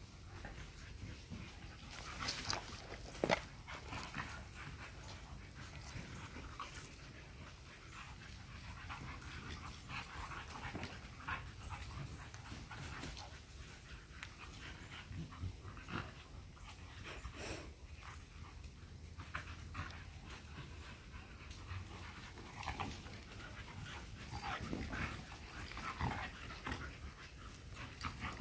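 Three dogs play-fighting, with dog sounds and scuffles scattered throughout; the loudest is one sharp sound about three seconds in.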